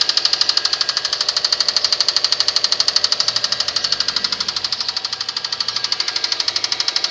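Subaru EJ25 2.5-litre turbo flat-four engine running cold with a steady, rapid knock, about a dozen knocks a second.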